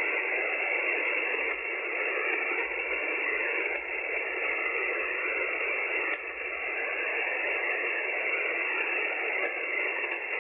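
Steady static hiss from an Icom IC-705 transceiver receiving 7.148 MHz lower sideband on the 40 m band with no station talking on the frequency. The hiss sounds thin and boxy, with no deep bass and no treble, as heard through the narrow SSB filter.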